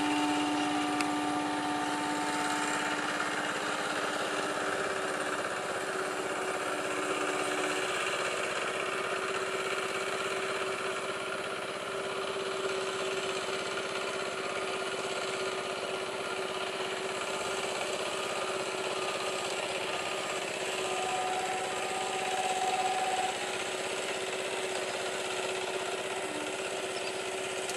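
Electric multiple-unit local train running along the line, a steady mechanical hum with held tones over it. One tone holds for the first several seconds and another comes back briefly about three quarters of the way through.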